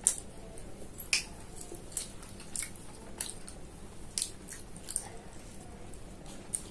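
Close-up mouth sounds of someone chewing mutton liver curry and roti: wet smacking clicks at an uneven pace, the loudest right at the start.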